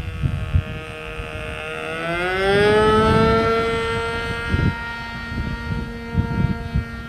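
Model airplane's Evo .36 two-stroke glow engine turning an 11x4 propeller in flight, a steady high-pitched buzz. Its pitch rises about two seconds in and it is loudest around the third second, then holds. Wind gusts buffet the microphone underneath.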